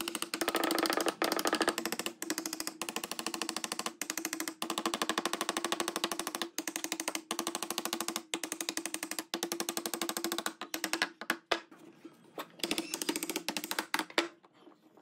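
A small machine running with a fast, even ticking over a steady hum. It stops for a moment about every second, and runs in shorter, choppier spurts near the end.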